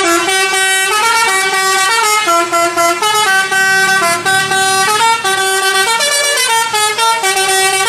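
A toy city bus's electronic sound module playing a tune: sustained electronic notes that step up and down one after another. It starts and stops abruptly.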